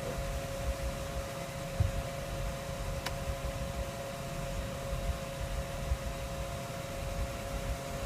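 Steady low rumble and fan-like hiss of a car cabin with a constant whine over it, and a single click about three seconds in.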